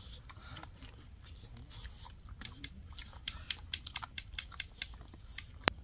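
Faint eating sounds: chewing, with irregular small clicks and taps and one sharper click near the end.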